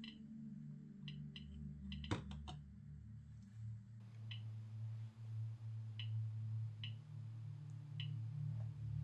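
Soft ambient background music of sustained low tones, with faint ticks about once a second. A single sharper click about two seconds in, from a button being pressed on a handheld radiation detector.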